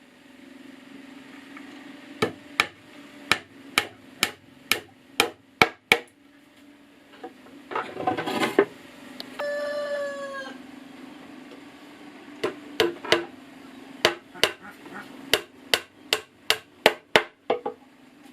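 Hammer driving nails into wood, sharp blows about two a second in two runs. A rooster crows once in the pause between them.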